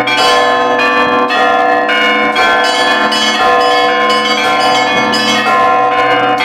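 Church bells ringing, several bells struck in quick succession, about two to three strikes a second, their tones overlapping and ringing on.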